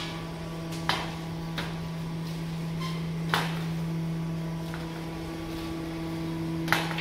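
Metal wire roasting racks knocking and clanking a handful of times as whole roasted lambs are set down and shifted on them, over a steady low machine hum.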